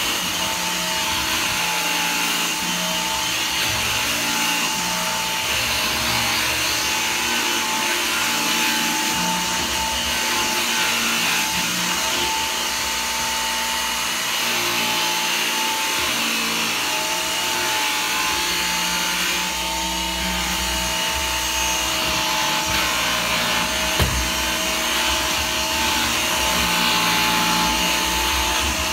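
G-Tech cordless vacuum cleaner running steadily, its motor giving a constant whine over a rushing hiss of air.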